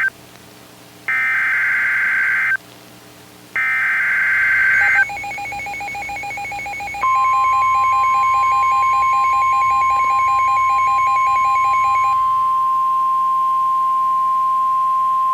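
NOAA Weather Radio alert signals: the warbling two-tone SAME digital header bursts, each about a second and a half long with a gap of about a second, announcing a new warning. After the last burst ends about five seconds in, a fast electronic beeping pattern follows. From about seven seconds in comes the steady single-pitch 1050 Hz warning alarm tone.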